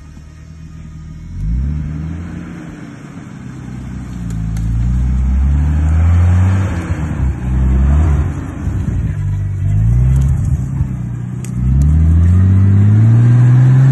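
Nissan Patrol's RB25DET Neo turbocharged straight-six revving up and down again and again under bursts of throttle. It starts low for about a second and a half, then climbs and falls several times, and holds high revs for the last couple of seconds.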